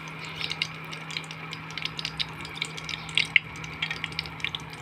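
Batter dumplings (nonbari) sizzling in hot oil in a steel kadhai, a steady frying hiss with many small irregular crackles and pops. A steady low hum from the induction cooktop runs underneath.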